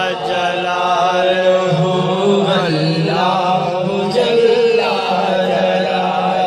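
Chanting of a devotional Urdu hamd in long, drawn-out held notes that bend slowly in pitch, over a steady low hum.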